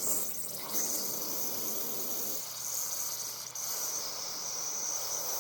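Aerosol carburetor cleaner spraying in one long, steady hiss into the small passages of a Briggs & Stratton carburetor to flush out clogged holes.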